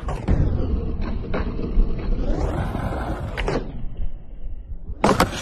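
Skateboard wheels rolling with a steady low rumble, broken by a few sharp clacks of the board hitting and landing, the loudest about three and a half seconds in.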